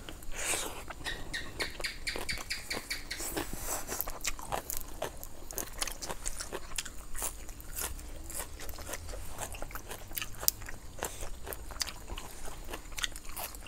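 Close-up sounds of a person eating grilled chicken and raw fresh vegetables with papaya salad: biting and chewing, with many small mouth clicks and crunches throughout.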